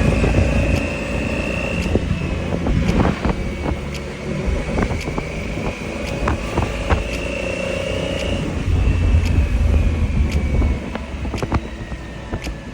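Motorcycle running under a heavy low rumble, its engine pitch rising slowly twice as it pulls away and speeds up.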